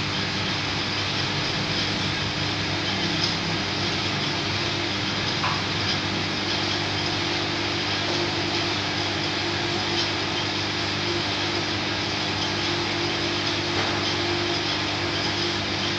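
U-bend annealing machine running steadily while it heats a carbon steel pipe bend clamped between its electrode blocks: a low electrical hum under an even rushing noise, with a few faint ticks.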